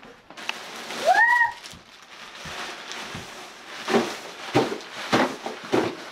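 Plastic wrapping, nylon fabric and a cardboard box rustling and scraping as a deflated airblown inflatable is pulled out of its box, in a run of rustles over the second half. About a second in, a short high cry rises and falls.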